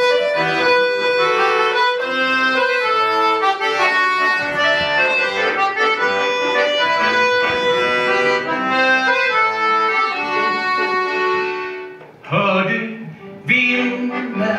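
Two button accordions playing a folk tune together, melody over chords. The playing drops away about twelve seconds in, then comes back in two short blocks.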